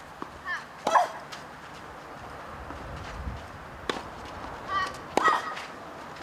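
Tennis rally on a clay court: sharp racket strikes on the ball, the loudest about a second in, with short grunts from a player on some of the strokes.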